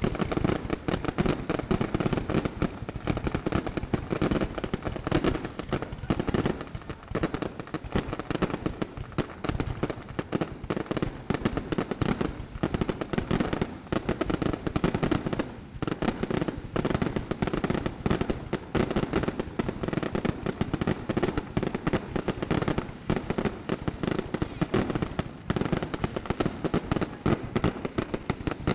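Fireworks bursting close overhead: a dense, unbroken run of rapid pops and crackles from many shells going off one after another.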